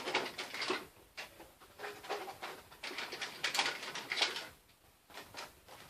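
Handling noise: objects being moved and rustled in bursts, in three irregular spells, the longest near the middle, as one gun is set aside and the next picked up.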